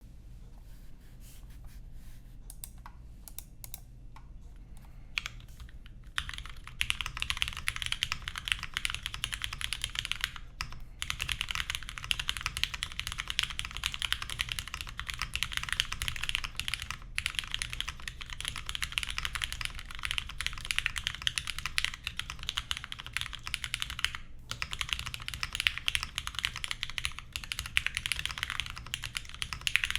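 Typing on a custom compact ergonomic mechanical keyboard with lubed, filmed, spring-swapped Cherry MX Black linear switches, a polycarbonate plate and GMK keycaps. A few scattered keystrokes at first, then steady fast typing from about six seconds in, with a few brief pauses.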